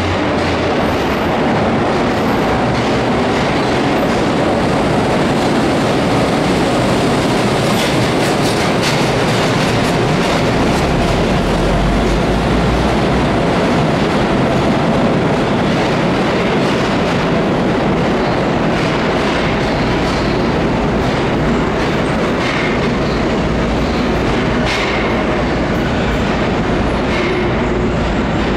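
NYC subway work train of R77E electric locomotives with a diesel locomotive at the rear rolling through an underground station: steady, loud rumble with wheels clacking over rail joints. About eleven seconds in, a deep diesel engine drone comes in as the diesel locomotive passes, and a few short wheel squeals sound near the end.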